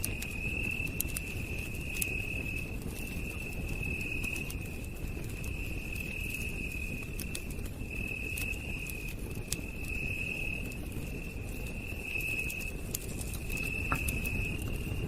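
Campfire crackling, with sharp scattered pops over a low steady rumble, while an insect trills steadily at a high pitch in stretches of a second or two with short breaks.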